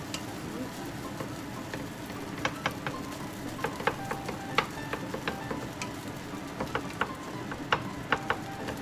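Fried rice sizzling in a hot pan while it is stir-fried with two wooden spatulas. The spatulas knock and scrape against the pan over and over, much more often from about two and a half seconds in.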